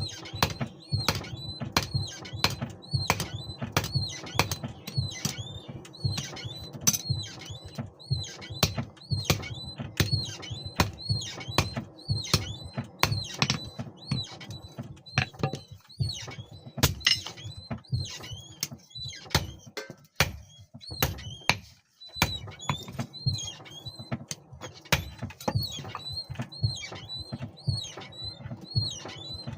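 Hammer blows on steel against an anvil, about two strikes a second, each with a short metallic ring, pausing briefly twice partway through.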